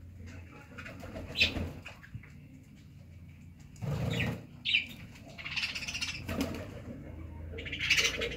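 Fantail pigeons cooing, with a few short rustles of wings and feathers.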